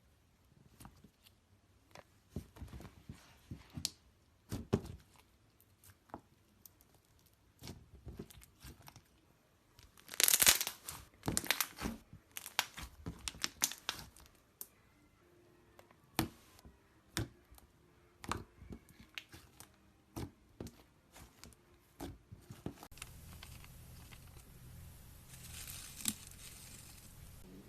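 Slime being squeezed, stretched and poked by hand, giving irregular sticky crackles and pops, with a dense loud run of crackling about ten seconds in. Near the end a steady faint hiss and low hum sit under the pops.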